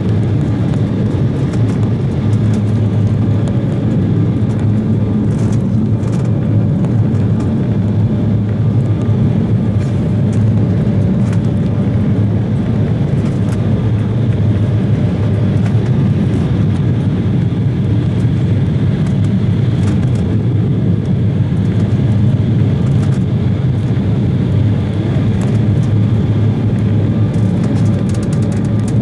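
Steady cabin noise inside an Embraer 170 airliner in flight: the drone of its twin turbofan engines and the rush of air over the fuselage, heavy in the low end with a faint steady tone above it.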